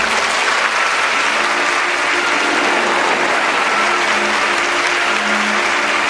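Theatre audience applauding, breaking out suddenly and holding steady, with the orchestra playing on faintly underneath.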